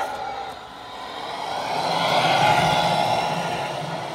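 A 1:10 scale radio-controlled semi-truck running as it drives on asphalt, its motor sound swelling to a peak about two seconds in and then easing off.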